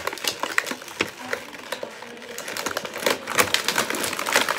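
Irregular clicking, crackling and rustling of plastic packaging and small plastic toy pieces being handled and pulled out.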